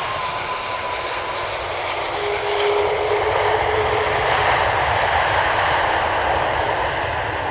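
Engines of an Airbus A330-200 MRTT twin-jet running on the landing rollout, the noise growing louder about two and a half seconds in as reverse thrust is applied, even as the aircraft rolls away down the runway.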